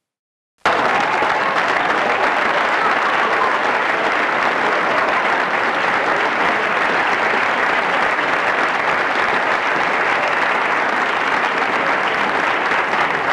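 Applause, cutting in suddenly about half a second in and holding steady throughout.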